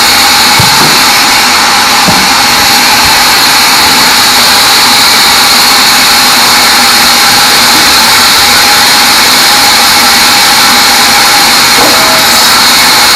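Log band saw running loud and steady, its blade cutting through small teak logs. A few dull knocks come in the first three seconds.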